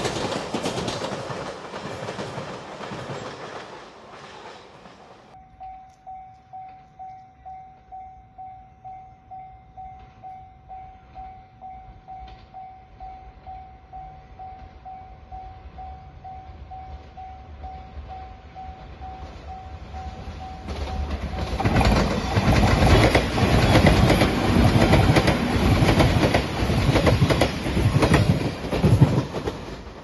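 A Japanese level-crossing warning bell ringing about twice a second, then a JR Shikoku 8000 series electric limited-express train passing close by with clickety-clack of its wheels over the rail joints. The train's passage starts about a third of the way in and stops near the end. Before the bell, the noise of the previous train passage fades away.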